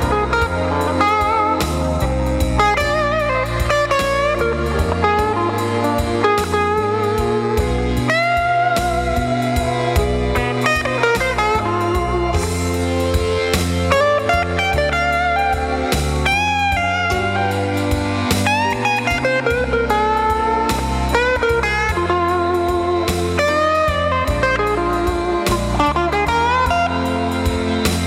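Electric blues lead guitar from a Fender Telecaster '52 Relic through a Fender Pro Junior valve amp with overdrive, delay and reverb. It plays single-note lines with string bends and wide vibrato over a steady low accompaniment.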